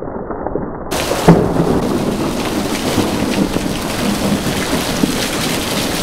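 Rain pouring steadily in a thunderstorm. About a second in, a sharp, loud thunderclap from a lightning strike, then thunder rumbling on under the rain.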